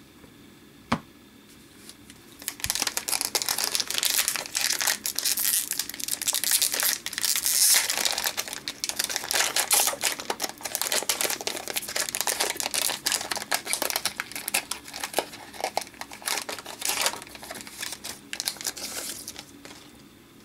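Foil wrapper of an Upper Deck Series One hockey card pack crinkling as it is handled and torn open: a dense crackle that starts about two seconds in and dies down near the end. A single short click comes about a second in.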